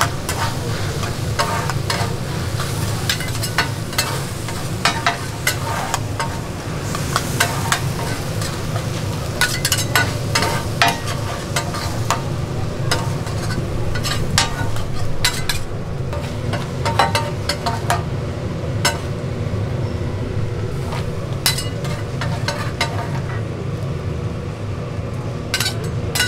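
Two metal spatulas scraping and clacking on a flat steel griddle while spicy stir-fried gopchang (pork intestines) sizzles, over a steady low hum. The clatter is busiest in the first two-thirds, thins out after about nineteen seconds, and picks up again briefly near the end as the food is scooped up.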